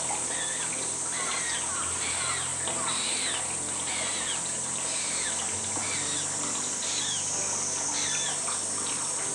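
Humboldt penguin chick begging to be fed: quick, repeated high-pitched chirping peeps, each a short note sliding in pitch, over a steady high hiss of running water.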